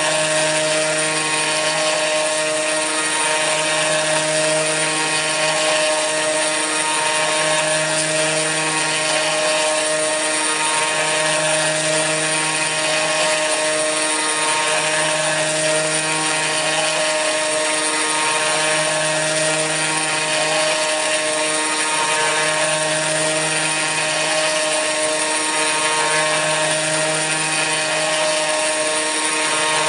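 Kress FME-1050 router spindle on a CNC mill, running steadily while milling aluminium: a constant high whine with a hiss of cutting. A lower tone swells and fades every couple of seconds as the cut changes.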